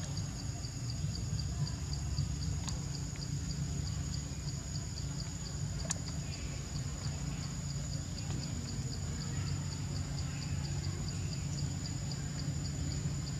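Forest insects calling steadily: a fast, evenly pulsed chirping and a continuous high buzz, over a steady low rumble. A couple of faint clicks come early on.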